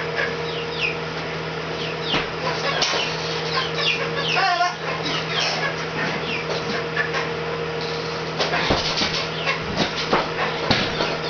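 Month-old chicks peeping: many short, high calls, each falling in pitch, overlapping throughout. Underneath runs a steady low hum, and a few knocks sound in the last few seconds.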